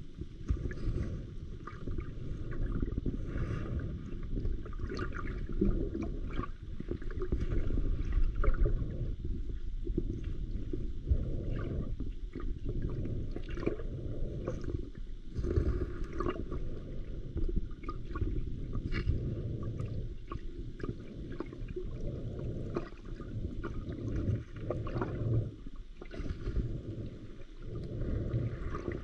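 Muffled underwater sound picked up by a submerged camera: a low, uneven rumble of water moving around the housing, with scattered faint clicks and crackles.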